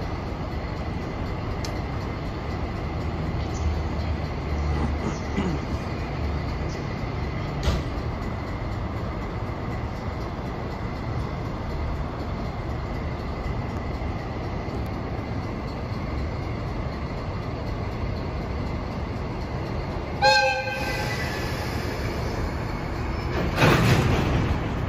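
Kanagawa Rinkai Railway DD55 diesel locomotive running with a steady low rumble, then one short blast of its horn about twenty seconds in. A louder rush of noise follows a few seconds later as the train prepares to depart.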